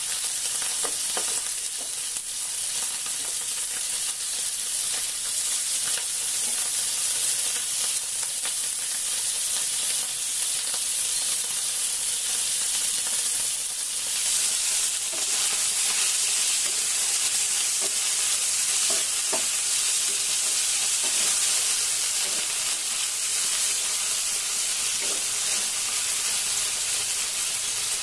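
Marinated beef strips sizzling steadily in a frying pan, with a few light clicks and scrapes as metal tongs stir the meat.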